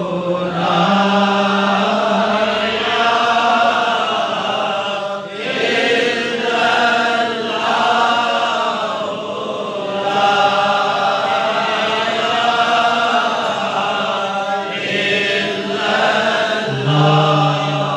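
A gathering of men chanting dhikr together in long, drawn-out phrases with brief breaks between them. Near the end a lower man's voice comes in over the chant.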